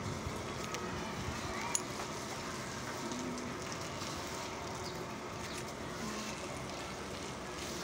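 Steady monsoon rain falling on a concrete rooftop, an even hiss with a few faint ticks.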